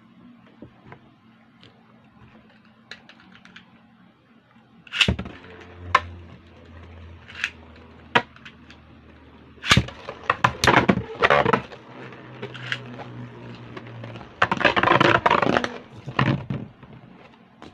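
Beyblade spinning tops (L-Drago Destructor and gold L-Drago) whirring in a plastic stadium, with a low steady hum while they spin. They clash and skitter with quick runs of sharp clicks and clatter, loudest in a dense burst of collisions about fifteen seconds in.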